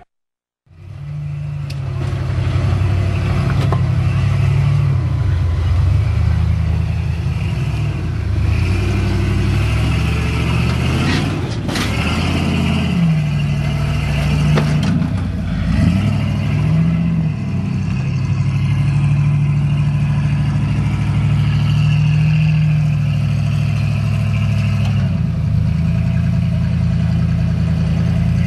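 Off-road rock-racing vehicle's engine revving hard and continuously, its pitch rising and falling with the throttle as it climbs over rocks. A few sharp knocks or clanks stand out about halfway through.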